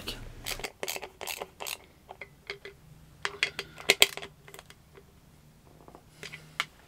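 Sharp metallic clicks and clinks of hand tools and bolts working on a Honda Z50 wheel hub, coming in scattered clusters of quick taps.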